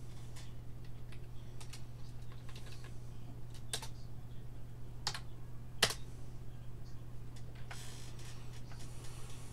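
Computer keyboard typing: scattered keystrokes, with three louder clicks in the middle, over a steady low hum.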